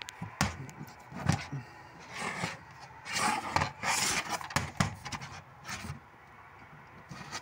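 Plastic DVD case being handled: a few light knocks and clicks, with a stretch of rubbing and scraping about three to four seconds in.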